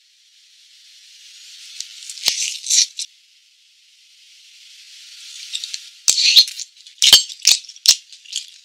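A rattling, shaker-like sound: a hiss swells twice, each time breaking into a run of sharp rattles and clicks, the second run longer, from about six seconds in.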